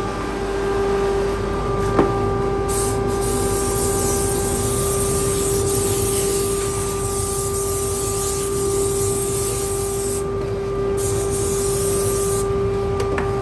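Compressed-air blow gun hissing in two long blasts, about seven seconds and then about a second and a half, blowing sawdust toward the mouth of a dust-extraction hose. Under it the workshop dust collector hums steadily, with one sharp click about two seconds in.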